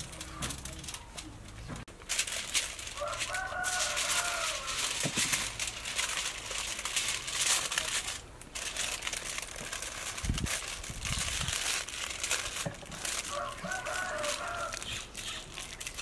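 Aluminium foil crinkling and crackling as a food parcel is folded and pressed by hand. A rooster crows twice in the background, about three seconds in and again near the end.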